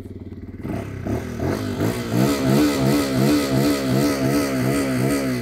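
QJ Motor SRK 125 S motorcycle's 125 cc engine idling, then revved from about a second in with repeated throttle blips, rising and falling about twice a second, and easing back toward idle near the end.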